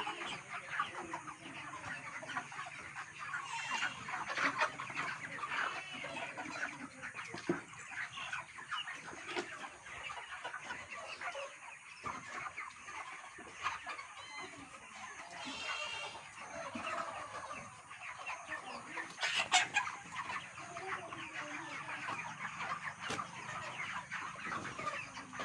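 A large flock of chickens clucking and calling continuously, many birds at once, with a brief sharp clatter about two-thirds of the way through.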